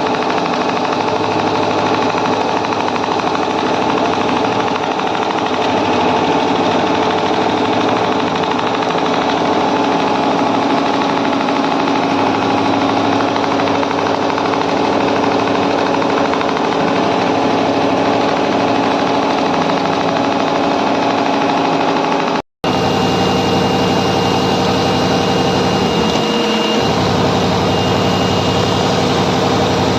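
Industrial sewing and perforation machine running steadily, a dense, loud rapid mechanical clatter with a steady hum. The sound drops out for an instant about two-thirds through, then the machine carries on.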